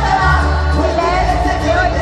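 Live concert music: a large band with a singer, recorded from the audience, loud and heavy in the bass.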